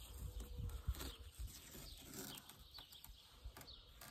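Small birds chirping with many short, falling calls, over a few soft handling thumps and rustling as masking tape is peeled off a plastic kayak hull.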